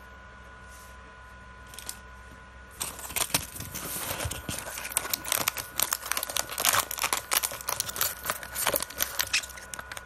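Plastic snack wrappers crinkling and rustling as a hand rummages through a box of packaged snacks. The rapid, irregular crackling starts about three seconds in and goes on almost to the end.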